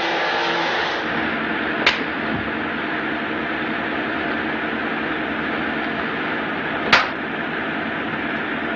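Steady rushing noise of a car driving, heard from inside the car, with two sharp clicks, one about two seconds in and one about seven seconds in.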